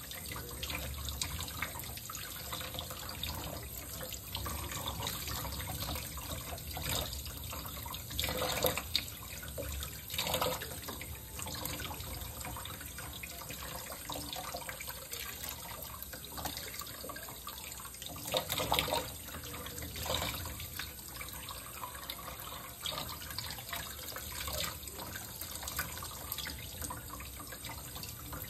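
Kitchen faucet running into a stainless steel sink, the stream splashing over a small puppy being rinsed. The flow is steady, with a few short, louder moments now and then.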